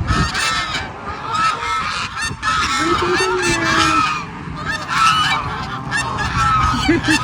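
A flock of geese honking, many calls overlapping with no break.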